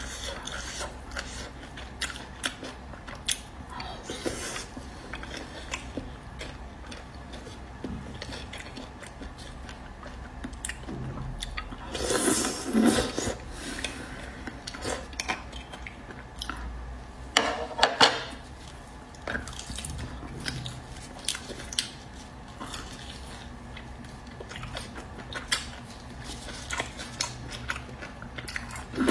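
Close-miked eating of braised beef bone marrow: a metal spoon scraping and clicking against the cut beef bones, with chewing. Two louder bursts come about twelve and eighteen seconds in.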